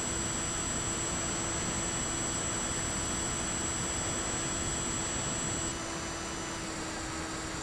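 Bixler 3 RC plane's electric pusher motor and propeller running steadily in flight, heard from an onboard camera with a rush of wind and a thin high whine. About three-quarters of the way through, the sound drops a little and the whine stops.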